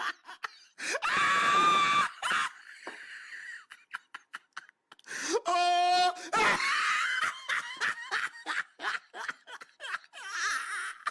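People laughing hard, with a loud yell about a second in and a high-pitched shriek around the middle, followed by quick, rhythmic bursts of laughter.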